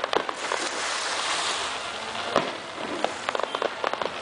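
Fireworks crackling overhead: a dense hiss of small pops and snaps from crackling stars, with one sharper bang about two and a half seconds in and a quick run of pops near the end.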